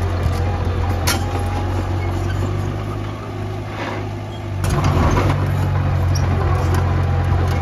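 Heavy diesel construction machinery running with a steady low drone; the engine eases off about three seconds in and picks up again near five seconds with a burst of noise, and there is a sharp knock about a second in.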